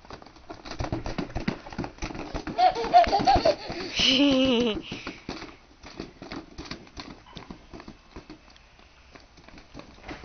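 A toddler laughing and squealing in short wavering bursts a few seconds in, with light taps of small shoes on brick paving.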